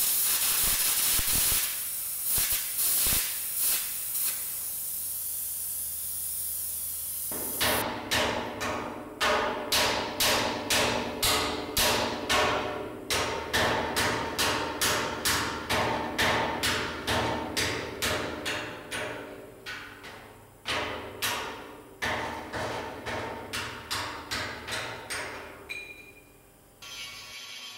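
An air arc gouging torch hisses and crackles on the steel bucket side for about the first seven seconds. Then a hammer strikes the steel about twice a second, each blow ringing, knocking loose the gouged-off side patch plate.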